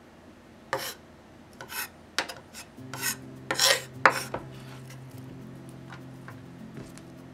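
A kitchen knife and chopped spinach scraping across a wooden cutting board and onto a stainless steel tray as the greens are gathered up. There are about six short rasping scrapes, the loudest just before the middle.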